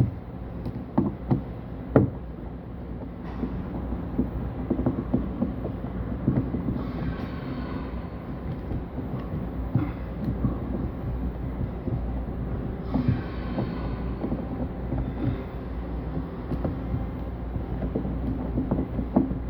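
Scattered light clicks and knocks of metal valve parts being handled and fitted together, over a steady low rumble, with two brief hissing noises along the way.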